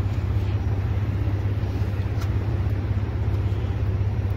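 A vehicle engine idling with a steady low hum, and a few faint knocks from a plastic kontiki being handled.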